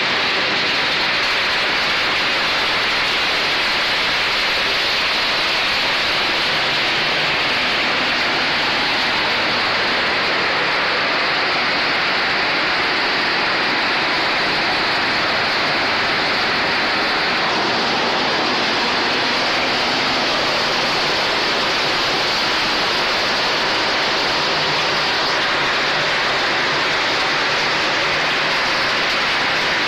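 PET bottle label remover machine running: a steady, loud rush of spraying and splashing water over the machine's low hum.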